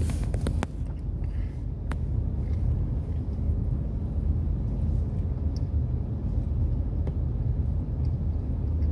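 Steady low rumble of a car heard from inside the cabin as it moves slowly, with a few faint clicks.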